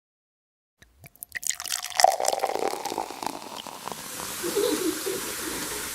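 Water splashing and dripping, starting with a scatter of sharp clicks and settling into a steady hiss.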